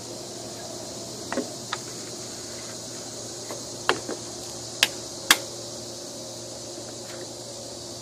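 Empty aluminium drink cans, joined end to end with caulk, clicking and knocking against a glass pane and wooden boards as they are pressed and shifted into place: about six short sharp clicks, the two loudest about five seconds in. A steady hum runs underneath.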